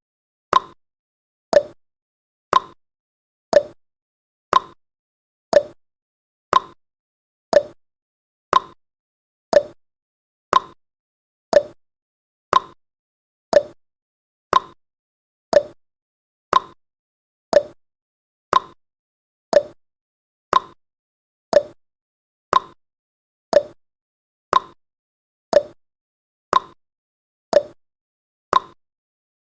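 Countdown timer's tick sound effect: a short, sharp tick once every second, evenly spaced and all the same loudness.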